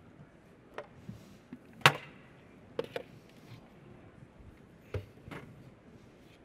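A few separate knocks and clacks, the loudest about two seconds in. They come from a food processor's glass work bowl and blade being handled as fresh pasta dough is tipped out onto a wooden cutting board.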